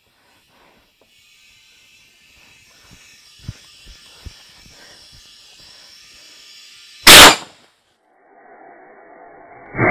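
Air hissing steadily through a tractor tire's coreless valve stem while the outlet of a TSI Cheetah CH-5 bead seater, a portable 5-gallon air tank, is knocked into place between the steel rim and the tire bead. About seven seconds in, the bead seater fires one very loud, short blast of air that seats the tire's unseated top bead. Music comes in right at the end.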